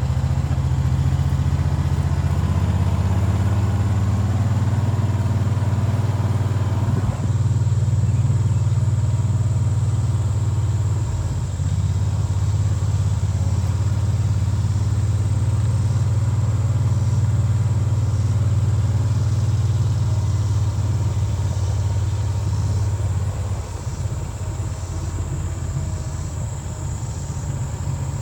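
A vehicle engine running steadily at a low pitch, easing off a little about 23 seconds in.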